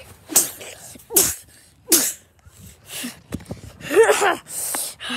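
Children's short breathy vocal outbursts during rough play, about six in a row, some with brief pitched cries.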